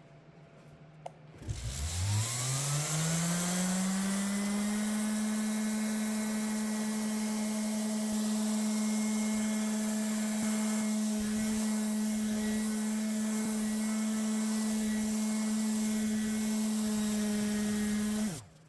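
Electric power tool's motor starting up, its whine rising in pitch over about two seconds, then running at a steady speed with no load changes until it cuts off abruptly near the end.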